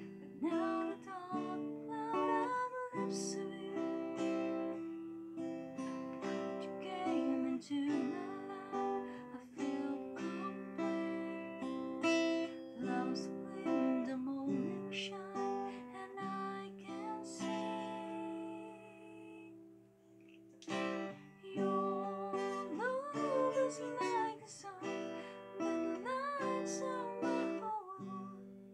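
Acoustic guitar strummed as a woman sings over it. The playing drops away briefly about two-thirds of the way through, then the strumming and singing pick up again.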